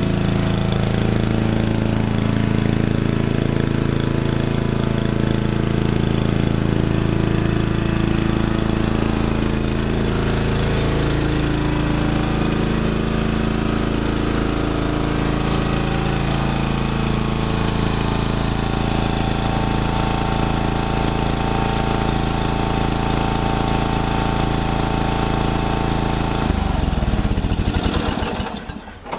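1993 Murray riding mower's engine running steadily as the mower is driven. Near the end it is switched off, and its pitch falls as it winds down to a stop.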